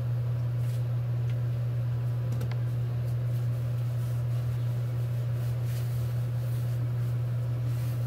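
A steady low hum with a faint hiss, broken only by a few faint clicks.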